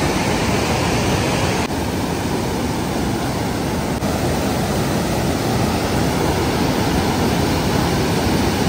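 Fast mountain stream rushing over rocks: a loud, steady rush of white water.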